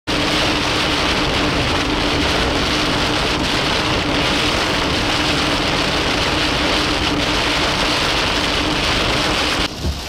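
Heavy rain pelting a moving vehicle, heard from inside it, with a steady low hum beneath. The rain noise drops away abruptly near the end.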